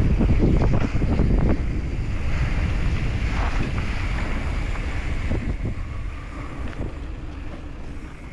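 Wind buffeting the microphone of a camera on a moving mountain bike, over the low rumble of knobby tyres on a dirt trail, with scattered clicks and rattles early on; the noise fades steadily away toward the end.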